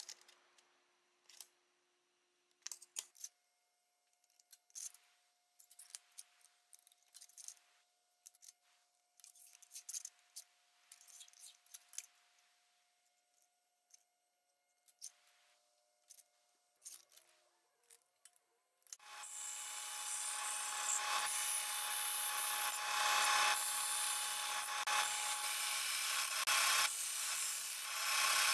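Light clicks, taps and scraping strokes as an aluminum sheet is handled and marked out with a marker along a ruler. About two-thirds of the way in, a vertical band saw starts and runs steadily, cutting the aluminum sheet, and this is the loudest sound.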